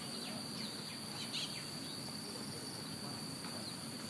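A steady, high-pitched insect chorus drones without a break, while a bird gives a few short, high chirps, three times.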